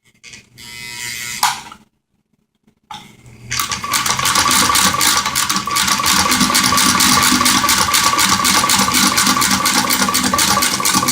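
Singer Spartan 192K electric sewing machine running steadily, stitching through a paper napkin: a motor whine with rapid, even needle clatter, starting about three seconds in after a short rustle.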